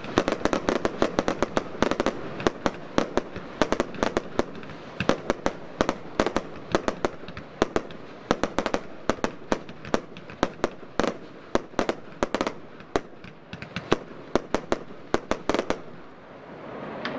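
Wolff Vuurwerk 'Mad Twister' firework battery firing: an uneven, rapid series of sharp bangs, several a second, that stops about a second before the end.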